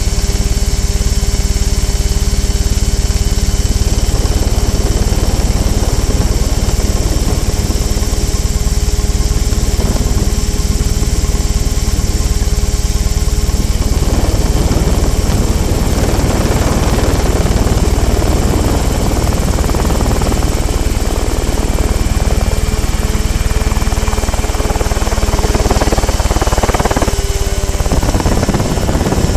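Mosquito ultralight helicopter in flight: its engine and rotor run steadily under a deep low rumble. About halfway through the sound turns rougher and noisier, and near the end the engine note dips briefly and shifts.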